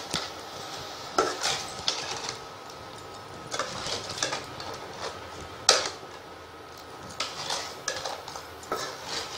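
Metal spatula scraping and knocking against a metal kadai as milk and sugar are stirred, in irregular strokes, the loudest a little past halfway.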